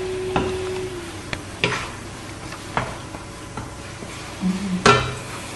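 Wooden spatula stirring a sauce cooking in a stainless steel pan: a soft sizzle under several sharp knocks of the spatula against the pan, the loudest near the end. A steady low hum stops about a second in.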